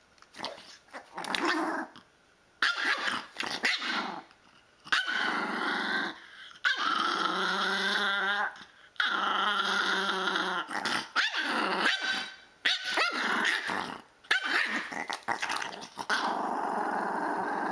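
Pomeranian growling in a run of long, drawn-out bouts with short gaps between them, the first few growls shorter and choppier.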